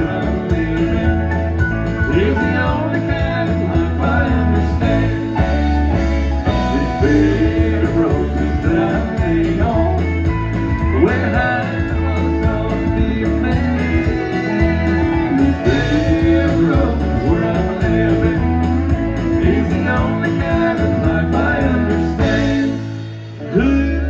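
Country song sung by male voices over guitar accompaniment. The music dips briefly near the end, then comes back in.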